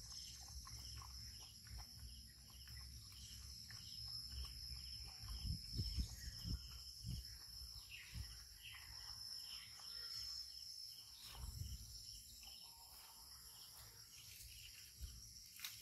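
Steady high-pitched chorus of insects, crickets or the like, trilling without a break, with soft low bumps now and then.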